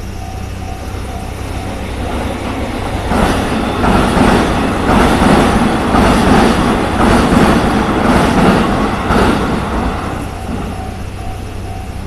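A JR Nambu Line electric commuter train passes over a level crossing, rising to its loudest in the middle and fading after about ten seconds, with a regular knock roughly every three-quarters of a second from the wheels crossing rail joints. The crossing's warning bell rings in short repeated dings, is drowned out while the train passes, and is heard again near the end.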